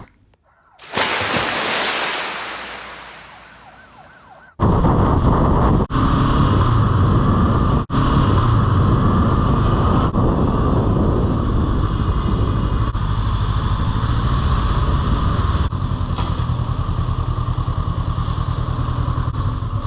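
A rushing hiss that fades away over a few seconds, then, from about four and a half seconds in, a motorcycle engine's steady running with road and wind noise while riding.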